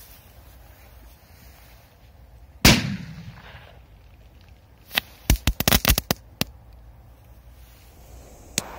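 Cracking Ball firecracker going off: one loud bang a little under three seconds in, then about two seconds later a quick string of sharp cracks lasting over a second, and a single small pop near the end.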